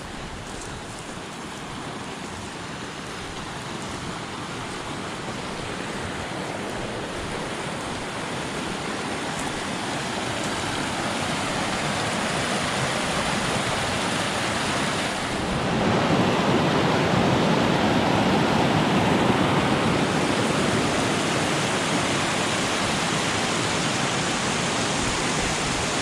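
A mountain creek rushing over rocks, a steady wash of water noise that grows gradually louder and swells further a little past the middle.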